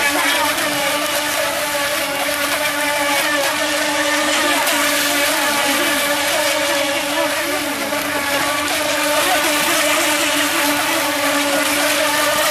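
Several FT009-type water-cooled electric RC racing boats running at speed together: a steady, high motor whine made of many overlapping pitches, with a hiss of spray.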